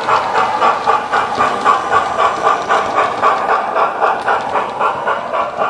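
Hornby P2 model steam locomotive's TTS sound decoder playing steam exhaust chuffs through a megabass speaker as the train runs past, an even rhythm of about three chuffs a second with hiss.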